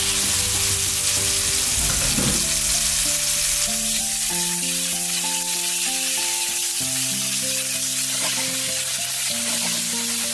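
Thin slices of marinated beef sizzling steadily in hot oil in a nonstick wok over medium-high heat, stirred now and then with a spatula.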